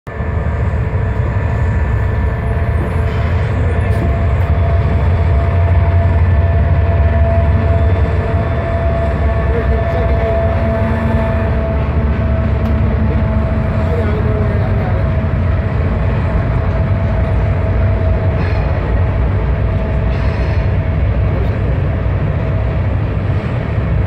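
Diesel locomotives of a BNSF grain train, with a Ferromex unit trailing, pulling past in a steady low engine rumble that is loudest about six to eight seconds in. It gives way to the rolling of covered hopper cars near the end.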